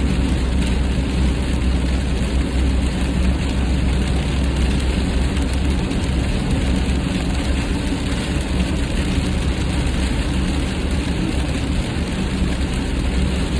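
Steady road noise inside a car cruising at highway speed on a wet road: a low engine-and-tyre drone with an even hiss over it.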